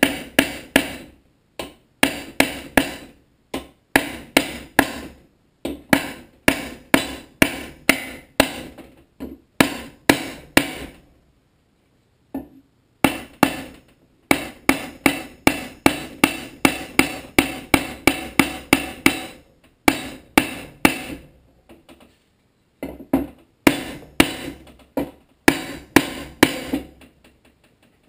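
Hammer striking a wooden block to drive a new oil seal into a Tecumseh HSK70 engine block. It makes rapid runs of sharp knocks, about three a second, broken by a few short pauses.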